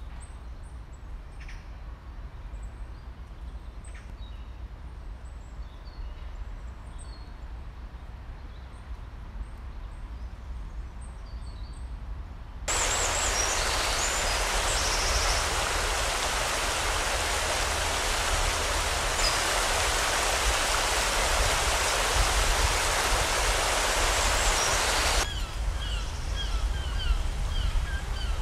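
Outdoor ambience in three cut sections: first, birds chirping faintly over a low rumble; then, a little before halfway, a sudden switch to the loud, steady rush of river water; then, a few seconds before the end, an abrupt cut back to the low rumble with birds calling in short repeated chirps.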